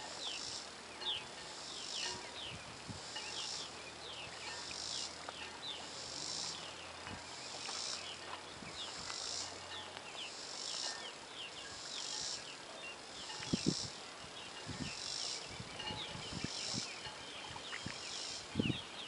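Insect chorus: a high buzzing that swells and fades in a steady rhythm about every second and a half, with many short high chirps through it. A few dull low thumps come in the last third.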